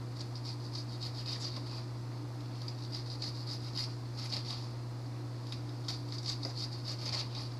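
A knife cutting a white onion into fine pieces on a paper plate: runs of quick, soft tapping and crunching strokes that come in bursts with short pauses between. A steady low hum runs underneath.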